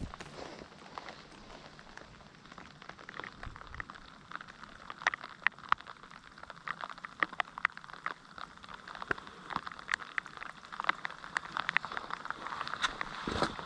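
Rain pattering, with many irregular sharp drop ticks that grow denser and louder from about five seconds in. Near the end there is a low thump.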